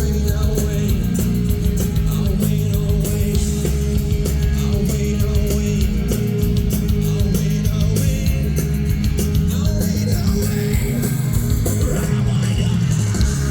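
Rock band playing live and loud, with a heavy low end and steady, regular cymbal hits.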